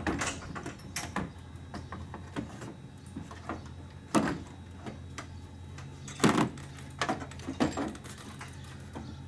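Knocks, bumps and scrapes of a radiator with plastic end tanks being lowered into an engine bay and seated in its mounts, with the loudest bumps about four and six seconds in.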